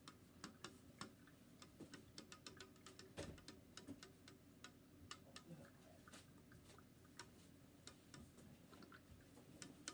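Near silence with many faint, irregular light clicks and taps, a couple to a few each second, as of small things being handled on a tabletop.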